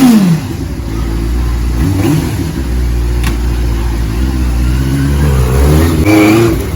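Motorcycle engine running over a steady low rumble, its revs rising and falling, with the strongest rev changes right at the start and again about six seconds in.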